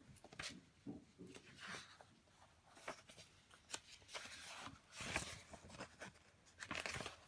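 Sheets of drawing paper rustling and sliding over one another as they are handled, a faint series of scrapes and soft taps that is busiest about five seconds in and again near the end.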